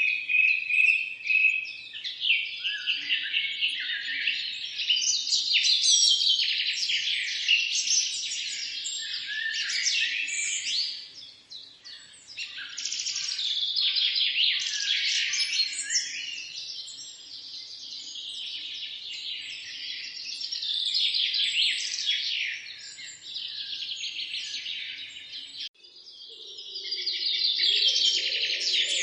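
Several birds chirping and singing at once, a dense chorus of quick overlapping chirps and trills. The chorus breaks off abruptly for a moment about 26 seconds in and resumes with a faint low noise beneath it.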